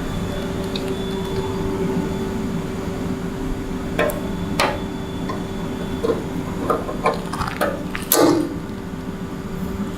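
A run of sharp clicks and knocks from parts and tools being handled during motorcycle disassembly, starting about four seconds in, the loudest near the end, over a steady background hum.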